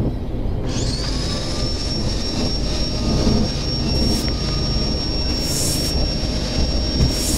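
Canister vacuum cleaner switched on: its motor spins up with a rising whine about a second in, then runs at a steady high whine. A few short hisses of air come later.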